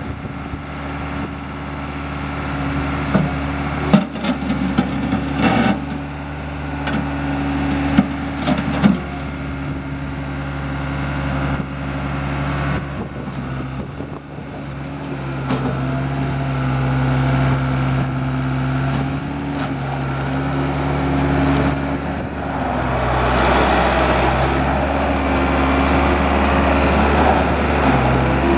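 Case 60XT skid steer loader's diesel engine running steadily, with several sharp knocks in the first ten seconds. It gets louder from about two-thirds of the way in.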